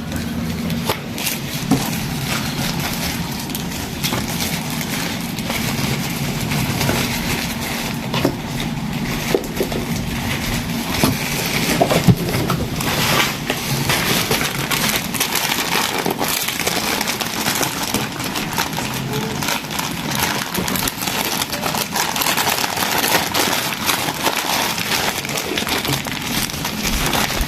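Rustling and crinkling of packaging being handled and opened, with scattered clicks and knocks throughout and a low hum under the first half.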